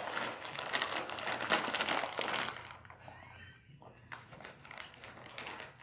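Foil chip bag crinkling and rustling as it is handled and tipped to the mouth, a dense run of crackles that dies down about two and a half seconds in, leaving fainter scattered rustles.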